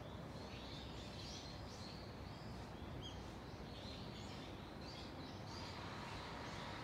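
Small birds chirping on and off with many short, quick calls, faint over a steady low background rumble.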